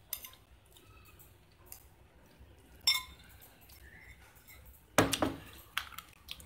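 A few light, scattered clicks and clinks of small hard objects: one with a short ring about three seconds in, then a quick cluster of clicks around five seconds.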